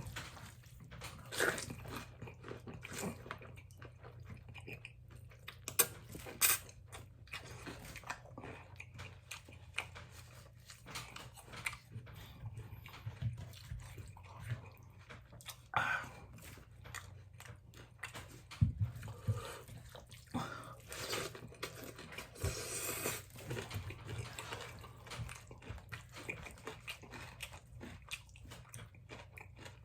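People eating noodles: irregular chewing and wet mouth noises, with scattered short smacks.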